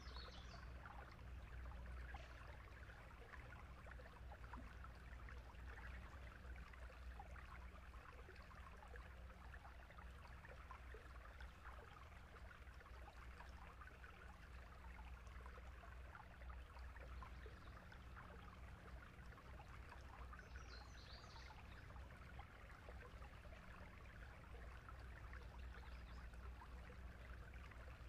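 Faint, steady sound of running water like a small stream, over a low steady hum, with a few brief high chirps about twenty seconds in and again near the end.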